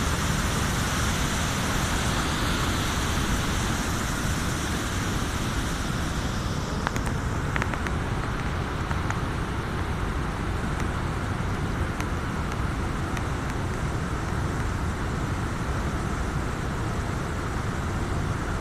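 River water pouring over a weir in a steady rush. The hissing top of the sound dulls about six seconds in, leaving a lower, even rumble.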